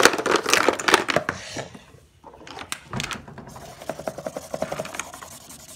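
Rapid clicking, knocking and rustling of objects being handled, loudest in the first second and a half, then fainter scratching.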